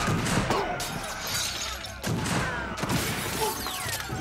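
Staged gunfight sound effects: several sharp cracks of gunshots, with glass shattering.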